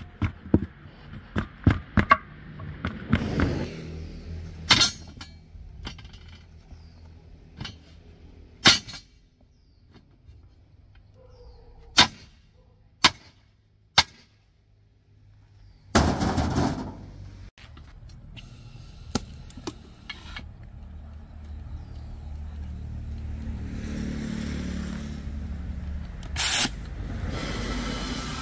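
Irregular sharp knocks and clanks of tool work on a tire, several of them ringing, then an engine running steadily and growing louder in the last several seconds.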